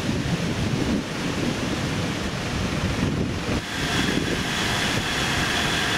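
Wind buffeting the microphone over a low road rumble from a vehicle driving slowly through city streets. A steady high whine joins about two-thirds of the way in.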